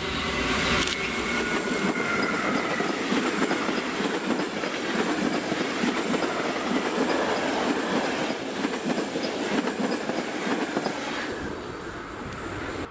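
Passenger express hauled by a ZSSK class 383 Siemens Vectron electric locomotive passing close by: a loud, steady rolling rumble of wheels on rail, with a falling whine in the first few seconds as the locomotive goes by. The noise thins out near the end as the last coaches pass.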